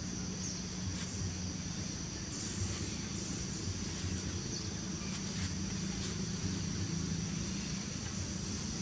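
Steady high-pitched insect drone, with a low hum underneath and a few faint ticks.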